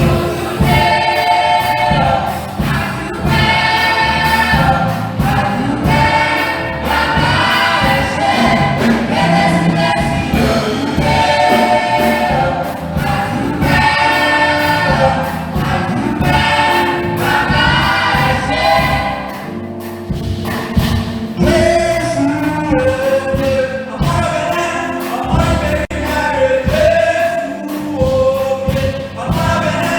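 Choir singing a gospel-style carol with drum accompaniment.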